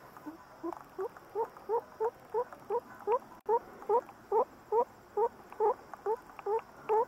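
A rabbit squeaking while it is held, a steady string of short calls that each rise in pitch, about two and a half a second, starting about half a second in.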